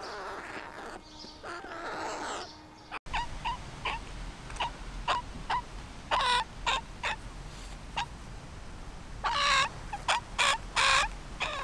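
Young carrion crow calling: a run of short, harsh calls, then several longer, louder calls near the end.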